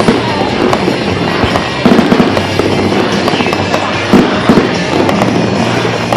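Aerial fireworks going off in quick succession, a dense run of bangs and crackles with a few sharper booms about two and four seconds in, over music.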